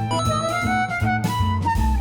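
Background music: an upbeat jazzy instrumental with a melody line over a walking bass and a steady beat.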